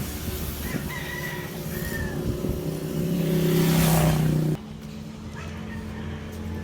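Urban outdoor ambience: a motor vehicle's engine grows louder, loudest about four seconds in, then cuts off abruptly to a steadier low hum. A rooster crows about a second in.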